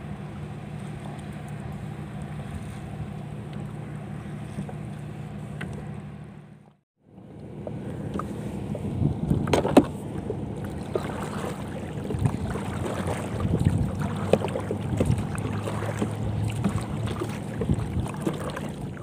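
Small boat being rowed across open harbour water: oar strokes with water splashing and scattered knocks against the hull, one louder knock about ten seconds in, with wind on the microphone. The first six seconds hold a steady low hum instead, and the sound cuts out briefly around seven seconds in.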